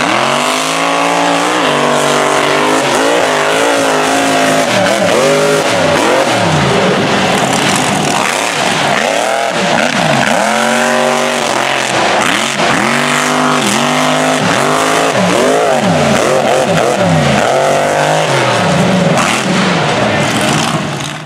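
Mini mega truck's engine revving hard under full throttle, its pitch repeatedly climbing and dropping as it races across dirt with tires spinning and throwing dirt. The sound cuts off abruptly at the end.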